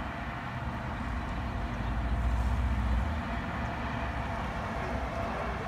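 Low, steady motor-vehicle rumble, swelling louder for about a second around the middle.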